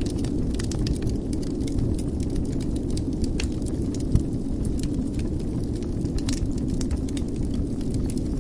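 Wood fire in a fireplace crackling, with many small sharp pops over a steady low rumble of the flames, and one louder pop about halfway through.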